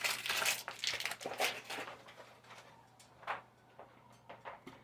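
Kitchen handling noises: rustling and scraping for about two seconds, then a few light knocks and clicks.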